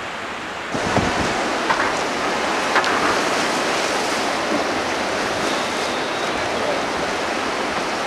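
Steady rushing of the flooded Krishna River's fast current below the Srisailam dam, starting under a second in, with a little wind on the microphone.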